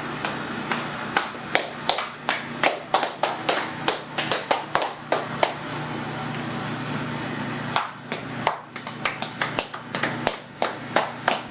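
A run of sharp hand claps, about two or three a second, thinning out for a couple of seconds past the middle, over a steady low hum.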